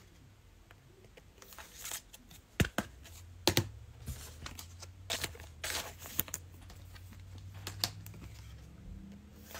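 Cello-pack wrappers of trading cards being torn and crinkled, with scattered sharp snaps and clicks of card handling, the loudest a few seconds in. A faint low hum comes in about three seconds in.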